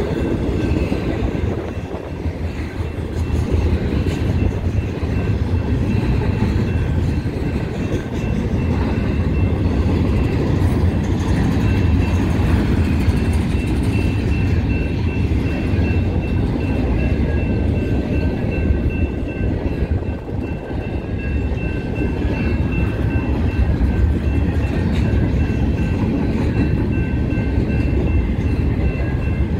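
Double-stack intermodal freight cars rolling past a grade crossing: a steady rumble and clatter of wheels on the rails, with the crossing bell ringing above it at an even pace.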